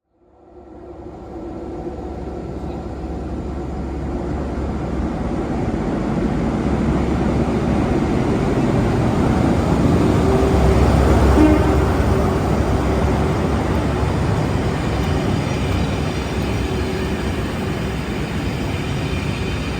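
A train running past with its engine and wheels rumbling, growing louder to a peak a little over halfway through and then holding steady.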